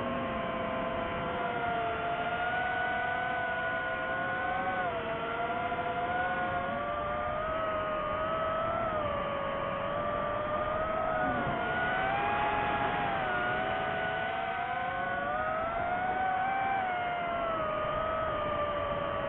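DJI FPV drone's motors and propellers whining in flight, several tones gliding up and down together as the throttle changes, over a steady rushing noise.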